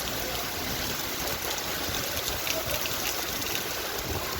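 Heavy rain pouring down in a steady hiss, with strong wind buffeting the microphone in a low, uneven rumble.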